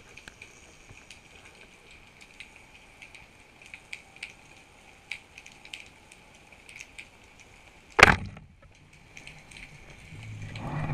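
Underwater crackle of faint scattered clicks, then late on a single sharp, loud crack of a speargun firing, followed by a low rushing sound that builds toward the end.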